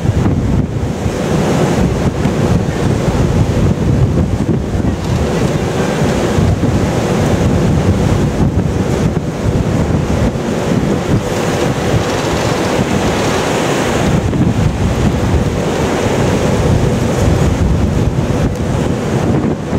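Strong wind buffeting the microphone over the steady rush of heavy seas and the wash along a tall sailing ship's hull as it runs before a gale.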